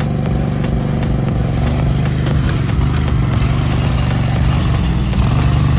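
Riding lawn tractor's engine running steadily under load as it drives up a pile of gravel road base, with gravel clattering under the tyres.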